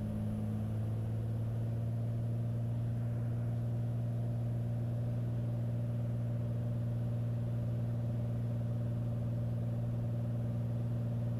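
Beechcraft A36 Bonanza's six-cylinder piston engine and propeller droning steadily, heard inside the cockpit.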